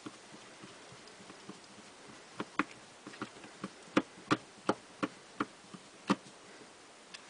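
T-handle hex key turning a screw into a chainsaw recoil starter's housing: faint ticking, then from about two and a half seconds in a run of sharp clicks, about three a second, as the key is turned and regripped.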